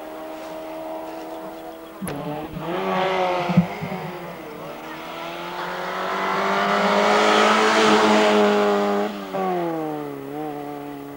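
Small race cars' engines working hard up a climb. First comes an even engine note. After a cut about two seconds in, the pitch rises and dips through gear changes. Then one long rising engine note grows loudest around eight seconds in and drops in pitch as the car goes by.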